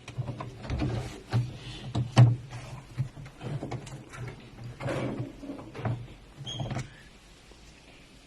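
A series of irregular knocks and clicks over a low steady hum, thinning out near the end.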